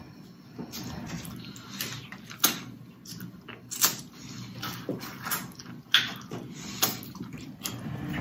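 Snow crab legs being cracked open and eaten close to the microphone: several sharp cracks and snaps of shell, with softer chewing and handling sounds between them.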